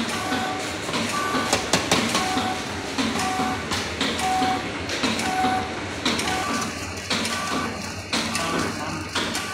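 Automatic chilli-powder sachet packing machine running at high speed: a steady mechanical clatter with regular sharp clicks and a short beep-like tone repeating about once a second.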